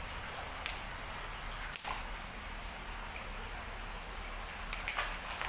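Steady outdoor background hiss with a few sharp clicks, about a second in, just before two seconds and twice near the end.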